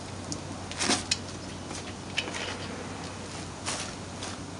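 Short clinks and scrapes of hand tools on a truck's wheel brake during a brake pad change, a few separate strokes with the loudest about a second in, over a steady low hum.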